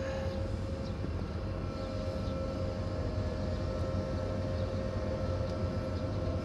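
Steady low rumble of an idling truck engine heard from inside the cab, with a constant mid-pitched hum over it.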